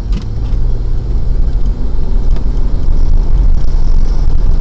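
Car engine and road noise heard from inside the moving car: a low, steady rumble that grows louder over the first few seconds as the car picks up speed.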